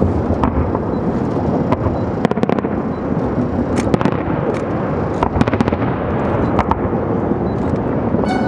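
Aerial fireworks bursting overhead: a continuous rumble of booms with sharp cracks scattered through it, several of them standing out.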